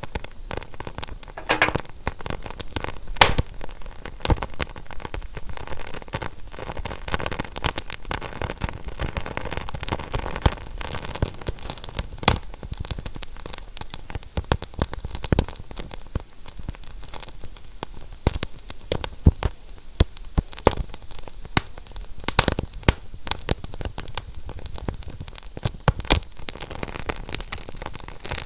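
Fire crackling: many irregular sharp pops and snaps over a steady hiss.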